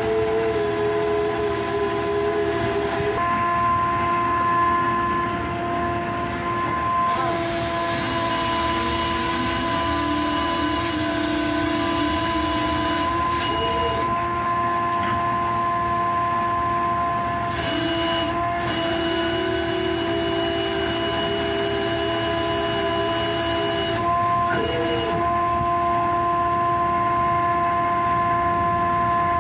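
Steady machinery hum made of several fixed tones over a broad rumble. The pitch dips or shifts briefly about four times.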